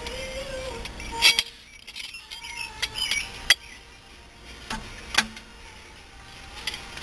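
Sharp metal clinks and taps from a steel C-clamp and a cast brake caliper being handled while the caliper piston is pressed back. About six separate clinks, the loudest a little over a second in and about three and a half seconds in.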